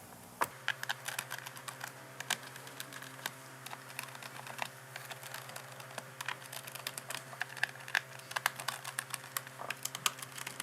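Irregular small clicks and taps of a precision screwdriver driving the bottom-cover screws into a Dell 3110 2-in-1 Chromebook's case. A faint steady hum starts about half a second in.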